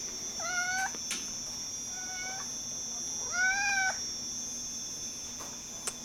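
Domestic cat meowing three times, short calls that rise and fall in pitch, the middle one fainter.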